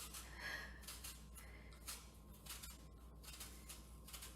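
An apple being peeled by hand: faint, irregular scraping strokes of the blade through the skin, about two a second, as the peel is taken off in one continuous strip.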